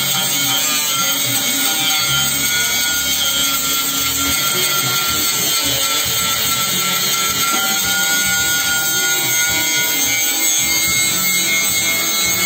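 An angle grinder's disc cutting steady through a steel rod, under background music.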